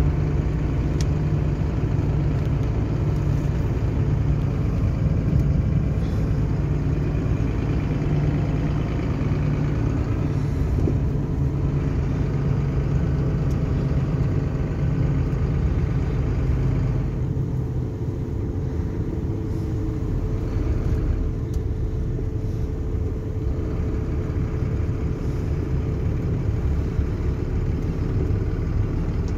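Mercedes-Benz truck's diesel engine running steadily under light load, heard from inside the cab while driving slowly, with tyre and road noise. Its low drone changes a little past halfway, dropping lower.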